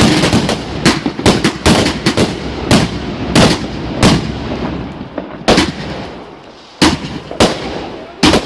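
A firework barrage going off in quick succession, with sharp bangs several a second. About halfway through it thins out to single bangs roughly a second apart.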